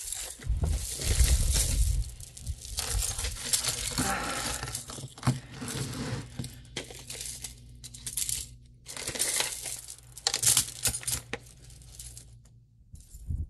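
Loose jewelry clinking and rattling as hands dig through a bucket of it and pull pieces out, on and off with short pauses.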